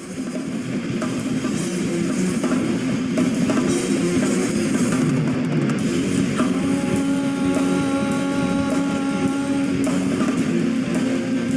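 Hardcore punk music with distorted electric guitar and drum kit, fading in at the start; about halfway through a held guitar chord rings out over the drums.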